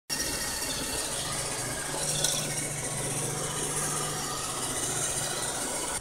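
iRobot Roomba Pet Series robot vacuum running: a steady mechanical whir with a low hum under it.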